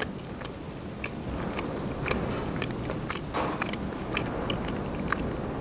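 Close-up chewing of a mouthful of shawarma: scattered soft, wet mouth clicks and smacks.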